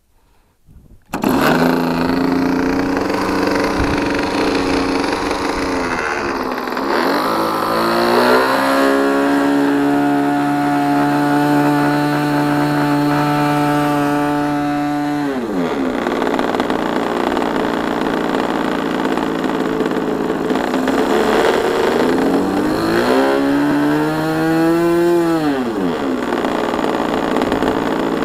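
Thunder Tiger .61 two-stroke glow engine of a nitro RC plane starting about a second in and idling, then opened up to a high steady run for about six seconds before throttling back to idle; a second short run-up near the end drops back to idle again.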